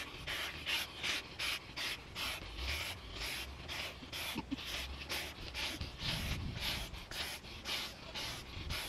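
Two people blowing hard by mouth into the valves of inflatable sleeping pads: a quick, even run of puffs of breath, about two to three a second.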